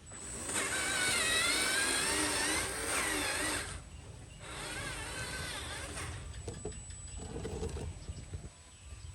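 Small electric motors of radio-controlled construction models whining, their pitch wavering up and down for the first three and a half seconds, then a weaker whir with scattered clicks.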